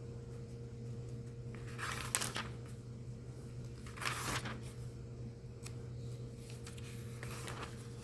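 Paper pages of a hymnal being turned by hand: two short rustles about two seconds apart, a fainter one near the end, over a steady low electrical hum.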